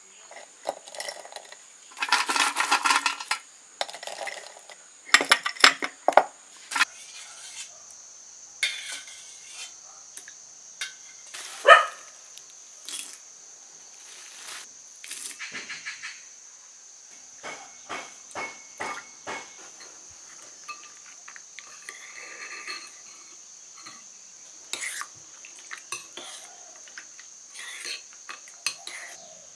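Dishes and spoons clinking and food pieces rustling in bowls: a string of short clatters and knocks, a few louder ones, over a steady high insect drone.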